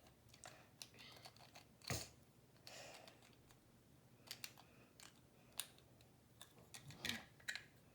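Faint, scattered clicks of plastic Lego bricks being handled and pressed together, with a louder knock about two seconds in.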